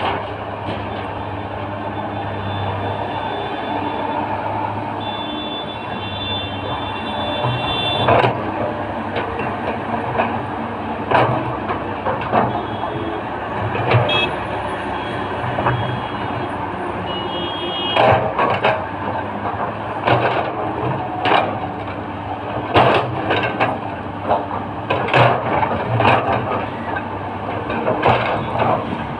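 L&T-Komatsu tracked hydraulic excavator working: its diesel engine running steadily under load while the bucket digs and loads soil, with repeated sharp knocks and clanks of the bucket and arm that come irregularly from about a quarter of the way in. A high thin whine comes and goes twice.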